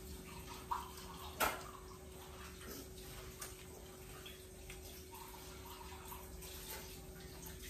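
Quiet sounds of eating by hand from plates: small clicks and one sharp tap about a second and a half in, over a steady low hum in the room.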